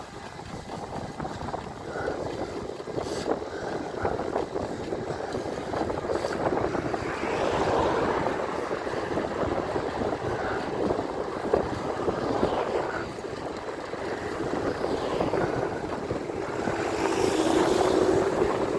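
Wind rushing over the microphone of an e-bike moving along a road, with a car overtaking close alongside near the end, where the sound swells.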